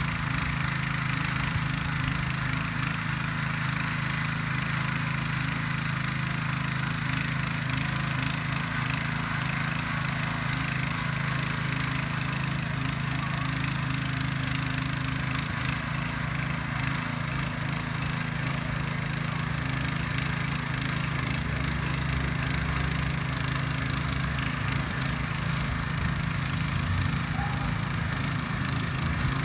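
Ruris DAC 7000 ACC2 walk-behind rotary tiller's engine running steadily under load as its tines churn dry garden soil.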